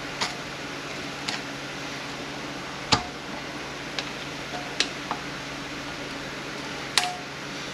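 Sparse metallic clinks and taps of hand tools and small parts on an automatic transmission being taken apart, about eight in all, several with a brief ring, the loudest about three seconds in. A steady low hum runs underneath.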